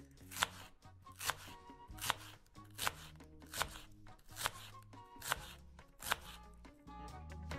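Kitchen knife cutting through an onion onto a wooden tabletop: sharp, evenly spaced chops a little more than one a second, about eight in all, over background music.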